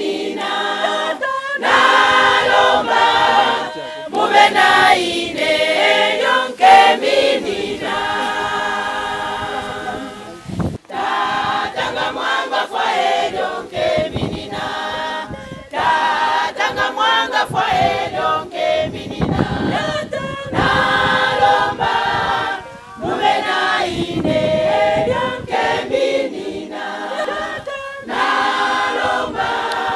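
Choir singing a cappella in several voice parts, phrase after phrase with short breaks between.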